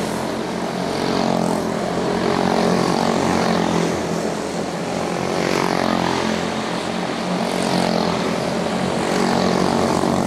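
Several quarter midget race cars' small single-cylinder Briggs & Stratton Animal engines buzzing together under racing throttle. Their pitch rises and falls over and over as the cars pass and work through the turns.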